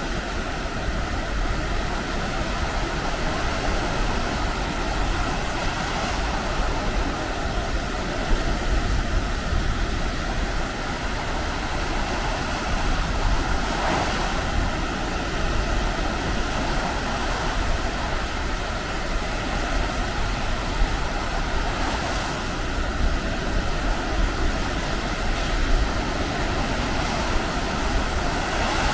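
Baltic Sea surf washing steadily onto the beach, with wind rumbling on the microphone.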